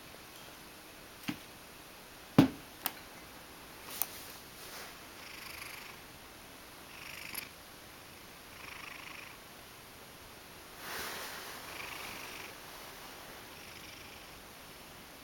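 Ragdoll cat purring in soft, recurring breaths. A few sharp taps or knocks come in the first four seconds, the loudest about two and a half seconds in.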